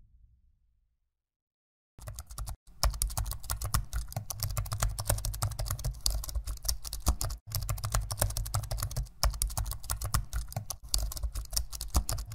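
Rapid, dense clicking over a low rumble. It starts abruptly about two seconds in after silence and has a few brief breaks.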